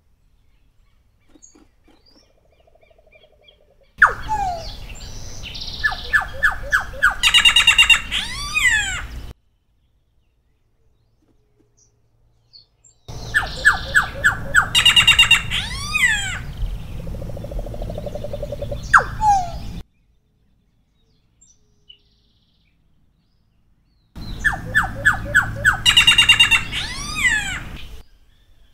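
Solitary black cacique (Cacicus solitarius) singing three song bouts. Each is a run of evenly spaced notes followed by quick high notes and falling swoops, and each starts and stops abruptly with near silence between.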